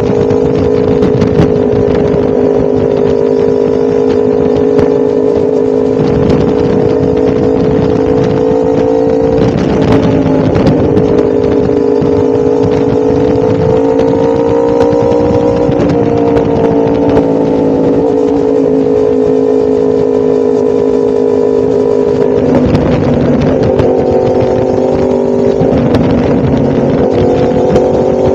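1000cc motorcycle engine running steadily at cruise. Its note drifts slowly and dips briefly and recovers a few times.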